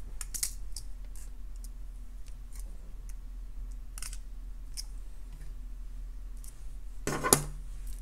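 Faint, scattered metallic clicks and ticks of thin jewelry pliers and wire as a wire tail is wrapped around the base of a wrapped loop, with one louder handling sound near the end.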